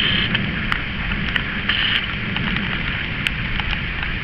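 Steady rain during a thunderstorm, with a low rumble underneath and a few faint ticks.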